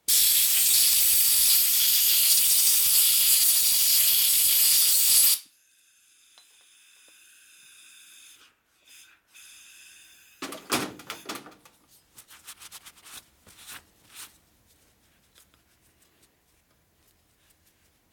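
Compressed-air blow gun blasting air through a small passage in a nitrous oxide transfer pump housing for about five seconds, then cutting off suddenly. A fainter hiss follows, then a run of light clicks and taps as the small metal parts are handled.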